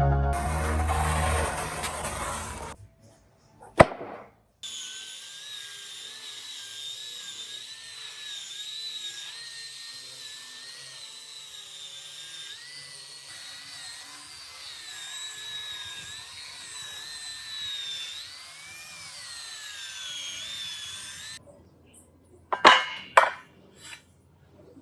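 A power tool running on wood with a steady, slightly wavering high whine, then a few sharp knocks near the end.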